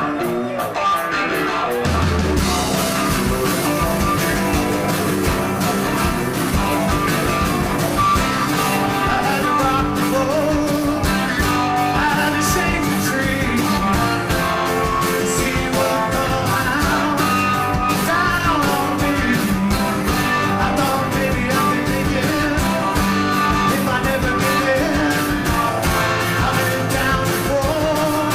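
Rock music with electric guitar and a steady drum beat; the full band comes in about two seconds in.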